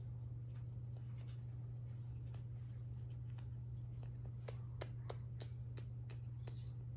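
A steady low hum with faint, scattered clicks and ticks over it, the clicks coming closer together about four and a half to six seconds in.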